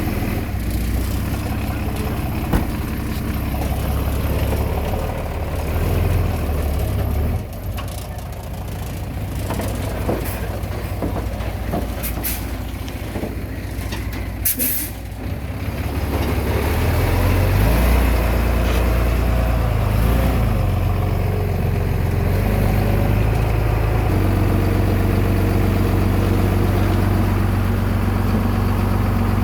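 Heavy diesel engine running, with two short air hisses about twelve and fifteen seconds in. The engine then grows louder around seventeen seconds and settles into a steady run.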